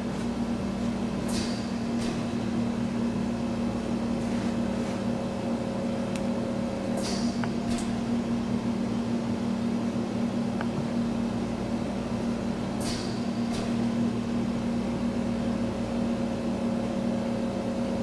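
Cooling fan of an old Dell Inspiron laptop running during power-on at the BIOS splash screen, a steady hum. A pair of short, high hisses repeats about every six seconds.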